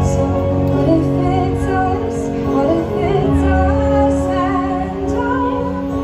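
A woman singing a musical-theatre song through the stage PA, over sustained instrumental accompaniment. Her voice comes in about a second in.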